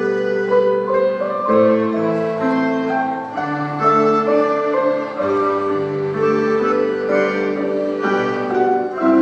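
An elementary school ensemble playing music, with held notes in several parts changing every second or so.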